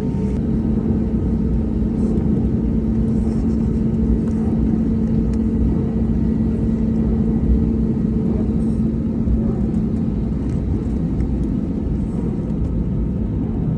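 Airbus A320neo jet airliner running with a steady low rumble and a steady hum that fades out about ten seconds in.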